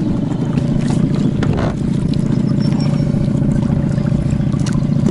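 Small outboard motor running at a steady speed, heard from aboard the inflatable boat it drives.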